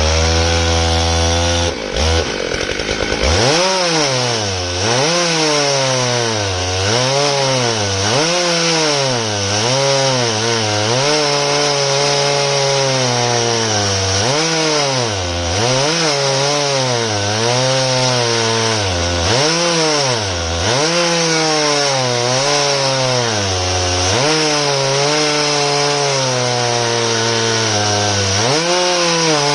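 Stihl MS661 two-stroke chainsaw with a 42-inch Oregon bar, mounted on a chainsaw mill, running flat out as it rips through elm. After the first few seconds its pitch repeatedly sags and recovers every second or two as the chain loads up in the cut.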